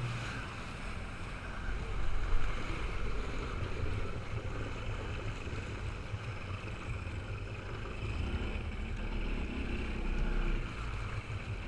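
Jet ski engine running steadily over open water, with wind and rushing water noise; it briefly gets louder a little over two seconds in.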